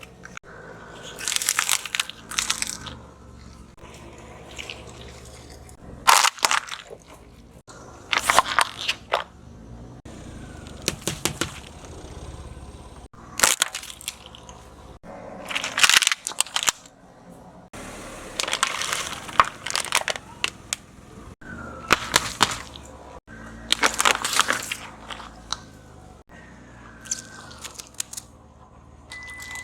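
Crunchy objects cracking and crunching as they are crushed under a car's tyres, in a series of loud bursts about every couple of seconds, some cutting off abruptly.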